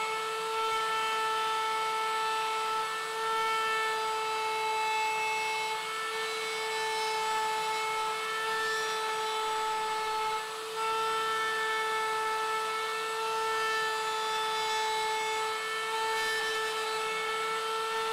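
Table-mounted router running steadily with a high whine, its round-over bit cutting the edge of a spalted maple tabletop as the top is turned against it. The level drops briefly about ten seconds in.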